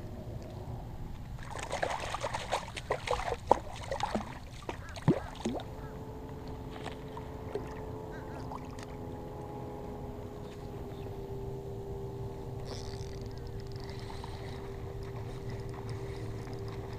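A ladyfish thrashing and splashing at the surface while being unhooked from a lure: a few seconds of splashes and sharp clicks. After that a steady hum holds on one pitch over the low wash of water and wind.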